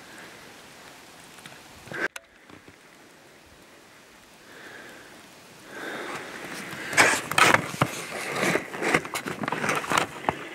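Footsteps crunching through deep snow and the rustle of snow-laden spruce branches being pushed past, close and uneven, starting about six seconds in. Before that there is only a faint steady hiss, with a single sharp click about two seconds in.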